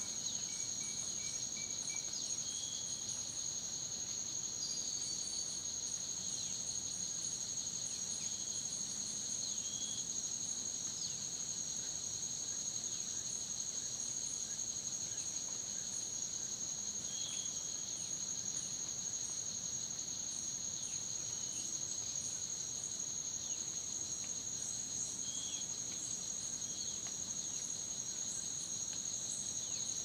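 Insects trilling steadily in two high, unbroken tones, with a short chirp every several seconds.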